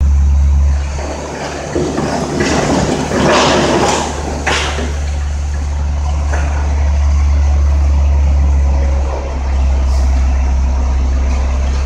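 FAW tipper truck's diesel engine running steadily while its telescopic hydraulic cylinder holds the body raised. Loose rubble slides and pours out of the tilted bed, heaviest between about two and five seconds in.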